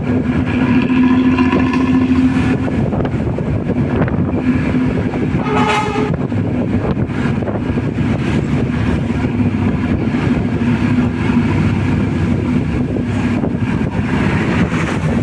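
Hino bus engine running steadily through a modified exhaust with its characteristic snoring ('ngorok') note. A short horn sounds about five and a half seconds in.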